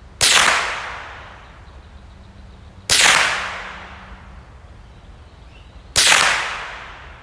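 Three shots from a Marlin Model 60 semi-automatic .22 LR rifle, about three seconds apart. Each is a sudden crack that trails off over about a second.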